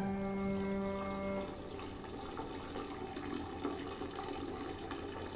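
A held musical note for the first second and a half, then water rushing steadily through building plumbing, the noise of the busy office upstairs.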